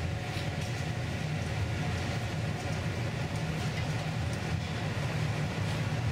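Steady low roar of a glassblowing furnace's gas burner and combustion-air blower, with a few faint metallic clinks as steel blowing irons are handled in their rack.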